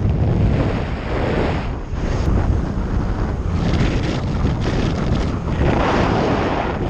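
Strong wind, about 10 m/s, buffeting the camera microphone during a speedflying flight: a loud, rumbling rush that swells and eases.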